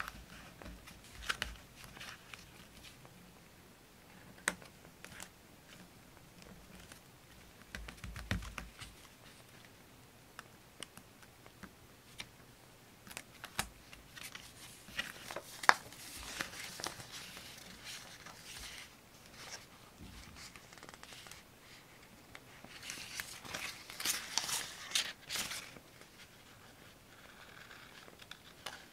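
Paper handled close to the microphone during journal decorating: scattered light taps and clicks, with a longer bout of paper crinkling and rustling a few seconds before the end.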